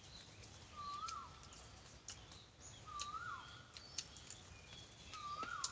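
A bird calling three times, about two seconds apart, each call a short rising note that hooks sharply down, with fainter higher chirps from other birds and a few light clicks.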